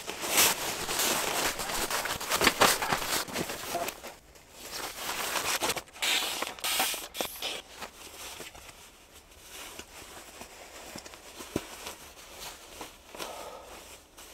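Rustling and scraping of camping gear and bedding being handled, densest in the first few seconds and again a little past the middle, then quieter with a few scattered clicks.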